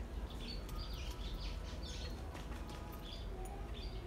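Small birds chirping over and over in short, quick downward calls, over a steady low rumble.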